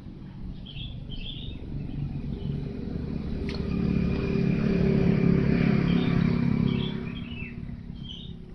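A motor vehicle's engine passing by, growing louder for a few seconds and then fading away. Birds chirp over it, and there is a single sharp click partway through.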